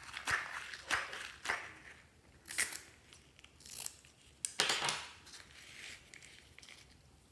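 Clear slime being squeezed and kneaded by hand, a run of about seven short crackling squishes that die away near the end.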